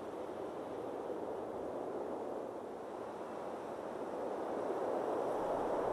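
A steady, even rushing noise with no distinct events, slowly growing louder toward the end.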